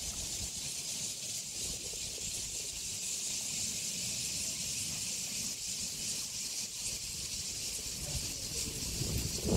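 Steady, high-pitched drone of cicadas, holding level throughout, with a faint low rustle underneath.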